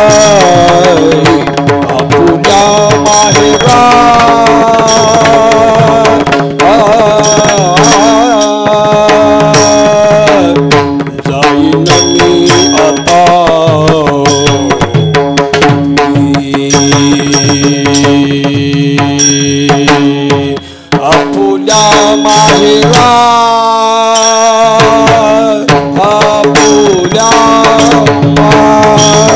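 Devotional abhang music. A hand drum plays a steady rhythm under a held drone and a wavering, gliding melody line, with short bright rings, like small cymbals, recurring in time. The music drops out briefly about two-thirds of the way in.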